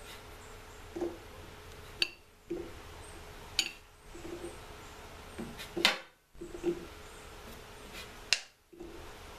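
Steel wrench clinking against a fitting on a hydraulic lift pump's metal valve block as it is tightened and reset between turns: four sharp metallic clinks about two seconds apart, with softer knocks between them.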